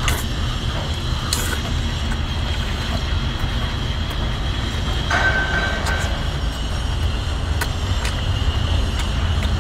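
Steady low rumble under a few short clicks, with a brief wet slurp about five seconds in as spicy sea snails are sucked from their shells.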